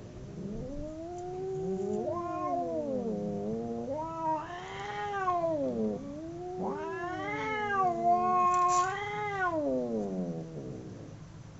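Two domestic cats caterwauling at each other in long, overlapping, wavering yowls, one voice lower and one higher, the pitch sliding up and down; the drawn-out threat howling of cats squaring up to fight.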